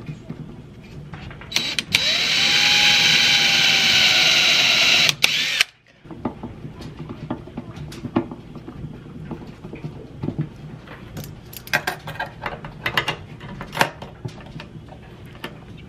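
A cordless drill's motor runs steadily for about three and a half seconds, starting near two seconds in, then cuts off. After a short gap come small scattered clicks and scrapes of a hand screwdriver and metal hinge hardware being worked on a wooden box.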